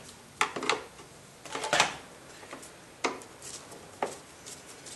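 Scattered sharp clicks and knocks, about half a dozen, from gloved hands handling plastic and metal parts under a car's hood.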